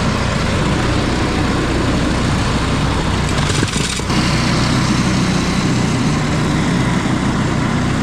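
A gasoline engine runs steadily under a constant throttle, with a brief dip about four seconds in. It comes from a machine that had been running poorly and that the owner suspected was iced up or starving for fuel.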